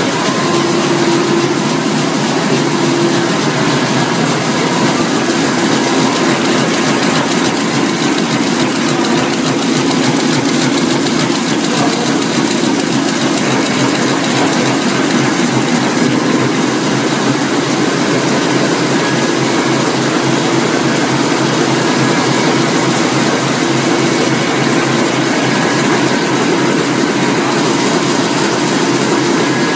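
A Roland 704 four-colour sheetfed offset printing press running at speed: a loud, steady, fast mechanical clatter over a constant hum.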